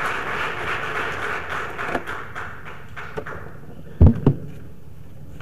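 Audience applause that fades out over about three seconds. About four seconds in, there are two short low thumps close together.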